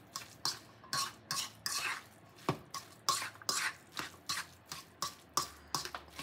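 A metal utensil stirring and mashing egg salad with mayonnaise in a stainless steel bowl: repeated short scrapes and clinks against the bowl, about two to three strokes a second.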